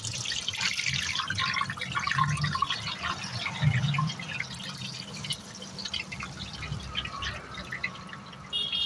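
Masala-coated chicken pieces dropped into hot oil in a large iron kadai, the oil sizzling and crackling hard as they deep-fry. The sizzle is strongest over the first few seconds and eases somewhat after, over a low steady hum.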